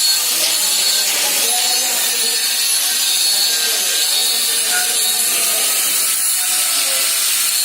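Welding: a steady, loud hiss with no pauses.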